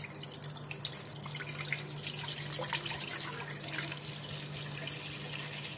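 Milk pouring in a steady stream from a carton into a wide non-stick pan, splashing and spattering with many small drips as the pan fills.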